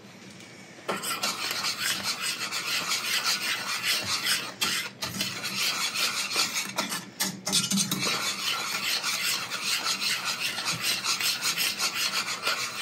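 A utensil stirring thick sausage gravy in a pan, a rapid, continuous rasping scrape against the pan bottom that starts about a second in and pauses briefly twice.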